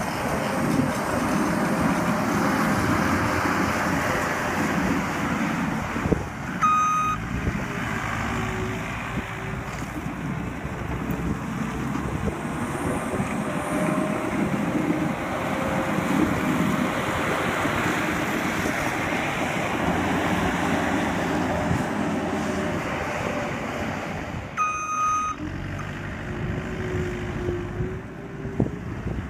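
Skid steer loader's engine running steadily with shifting tones as it works, its backup alarm beeping briefly twice, well apart.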